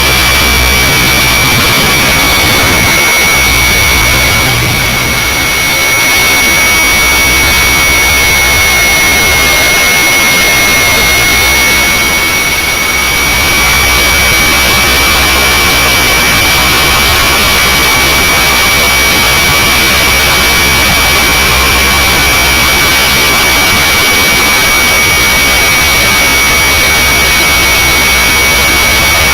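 Hirobo SRB radio-controlled helicopter in flight, heard through a camera mounted on it: a loud, steady high-pitched whine over a rushing noise of rotors and wind, dipping slightly twice.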